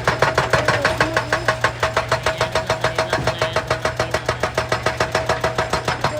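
Heavy machinery running with a rapid, even knocking at about nine strokes a second, over a steady hum.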